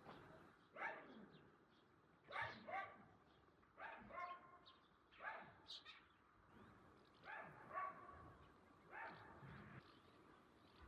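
A dog barking faintly and repeatedly, in single barks and pairs about every second and a half.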